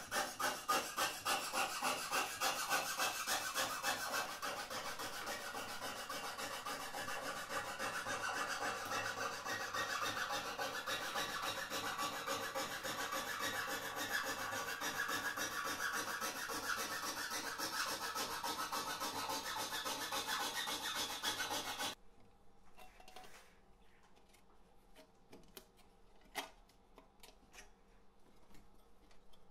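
A hand tool rasping back and forth against a small metal part in quick strokes. The strokes come about four a second at first, then run together into a steady rasp, and stop suddenly about 22 seconds in. After that come a few light metal clinks.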